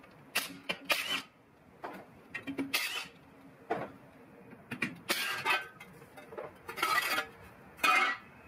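Brief bursts of a cordless driver spinning out the small bolts of a car's rear brake dust shield with a 10mm socket, amid metal clinks and clanks, as a series of short sharp noises with quiet between.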